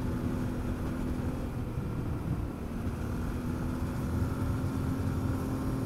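Yamaha Ténéré adventure motorcycle running steadily at cruising speed on a gravel road, its engine note holding even over a low rumble.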